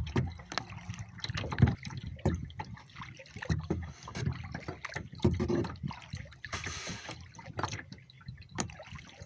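Kayak paddle strokes: the blades of a double-bladed paddle dipping into the water on alternate sides, with splashing and water dripping off the blades in irregular strokes.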